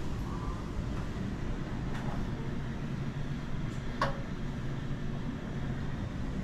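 Steady low rumble of background room noise below decks, with a few faint footsteps and one short, sharp click about four seconds in.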